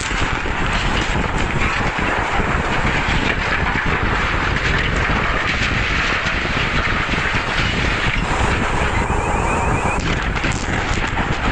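Wind buffeting the microphone, with a steady loud rumble under it.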